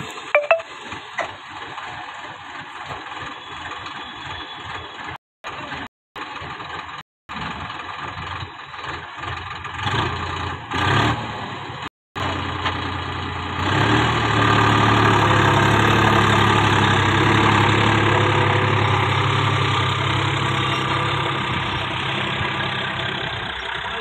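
Massey Ferguson 8055 Magnatrak tractor's diesel engine running steadily as it pulls a plough through the soil. The sound is broken by a few short gaps in the first half, then becomes louder and steadier about halfway through.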